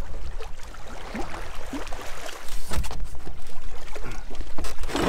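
Water lapping and splashing around a canoe at a rocky landing, with a few sharp knocks of gear and hull being handled. The loudest knocks come near the end.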